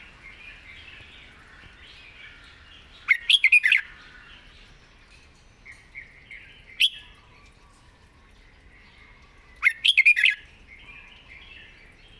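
Red-whiskered bulbul singing: two short, loud phrases of quick whistled notes, one about three seconds in and one near ten seconds, with a single sharp note between them. Fainter bird twittering goes on underneath.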